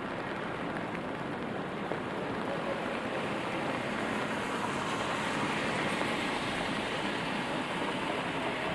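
Steady rainfall with city traffic noise, swelling slightly midway.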